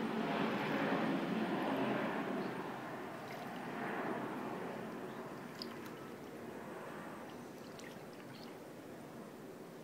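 Pool water lapping and sloshing softly around a floating body, with a rushing noise that fades away over the first half and a few faint drips and ticks later on.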